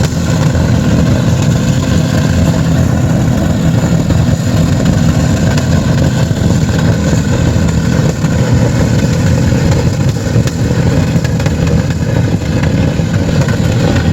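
Several car engines running together at high revs, a loud, steady, unbroken engine sound, as they are run flat out to try to make them fail.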